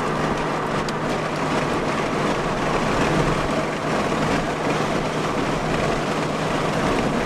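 Subaru being driven at speed: steady road and wind noise with a low, even engine hum underneath.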